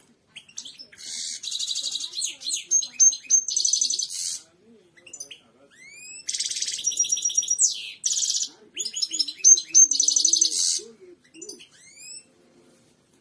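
A European goldfinch of the kind kept as a 'royal' goldfinch singing: two long phrases of fast, high twittering and trills, about two seconds apart, with a few single notes between them.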